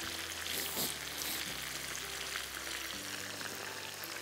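Breaded chicken fingers frying in sunflower oil: a steady sizzle with fine crackling spits.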